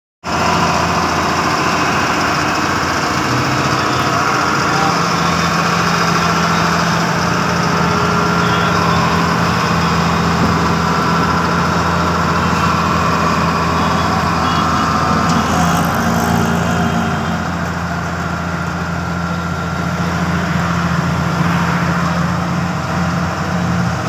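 ABG asphalt paver running steadily: a diesel engine hum with machinery noise, easing off slightly about two-thirds of the way through.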